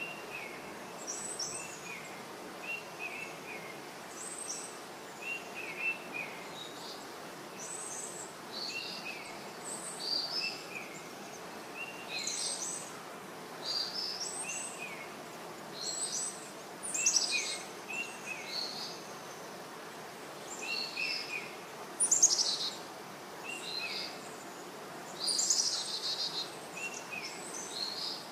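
Small birds chirping, short high calls repeating every second or two, over steady background noise.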